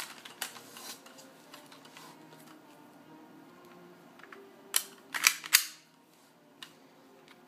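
Plastic toy dart shotgun being pumped: a sharp click, then two loud plastic clacks in quick succession about five seconds in, with lighter handling clicks before.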